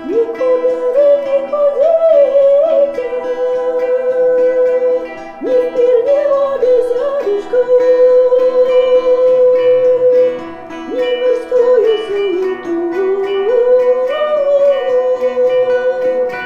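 A woman singing a folk-style melody in long held notes that slide from pitch to pitch, over a plucked string instrument and a steady drone. Her phrases break twice with short pauses.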